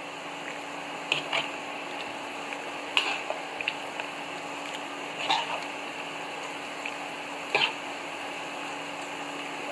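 Steel ladle working thick curd curry in a steel bowl: a few short, soft liquid splashes and light clinks of the ladle on the metal, spaced a couple of seconds apart, over a steady low hum.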